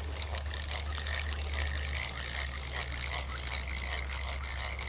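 Spinning reel being cranked to retrieve line, a steady whir of its gears, with a faint steady high tone behind it.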